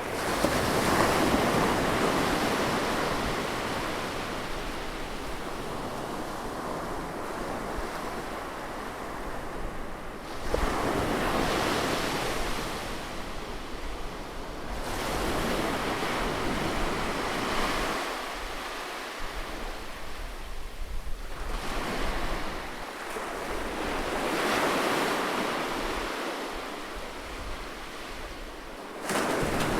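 Ocean waves breaking on a beach and washing back. The rushing surf swells and fades, with fresh breakers a few seconds apart and sudden surges about ten seconds in and again near the end.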